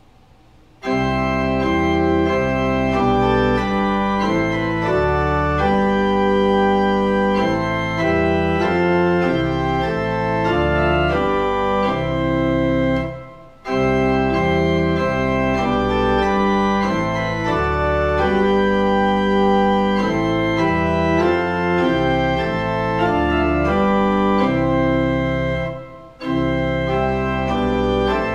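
Pipe organ playing sustained full chords over a pedal bass. It begins about a second in and moves in phrases, with a brief break just before halfway and another near the end.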